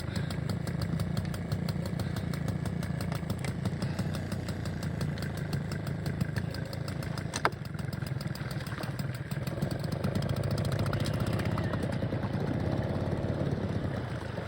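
Small 5 hp outboard motor running steadily at low speed, with a sharp click about halfway through.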